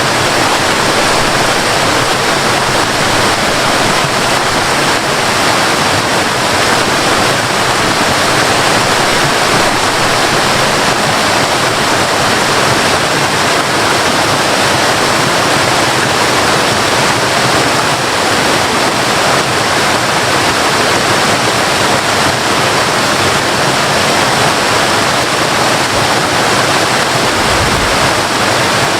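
Waterfall: water falling and rushing in a loud, steady, unbroken roar.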